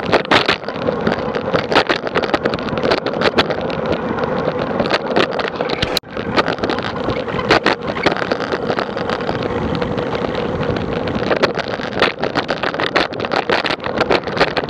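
Wind rushing over an action camera's microphone on the move, crackling and buffeting, with a steady hum underneath; the sound dips briefly about six seconds in.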